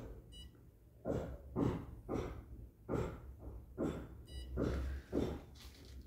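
Two short high electronic beeps about four seconds apart from a dental LED curing light timing its cure cycle. Underneath, a louder rapid breathing-like panting repeats about twice a second.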